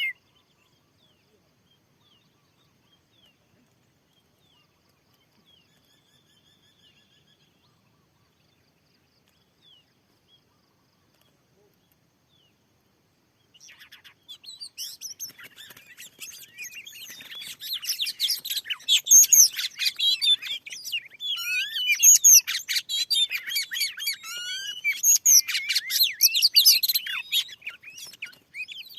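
Oriental magpie-robin (kacer) singing: a fast, varied run of loud whistles, trills and chattering notes. It breaks in about halfway through after near silence.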